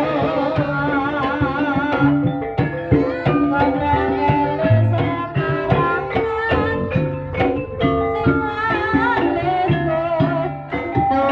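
Live Javanese gamelan music of the kind that accompanies ebeg dance: a hand drum (kendang) plays under struck, pitched bars in a quick rhythm. A wavering melody line runs over the first two seconds before the struck notes take over.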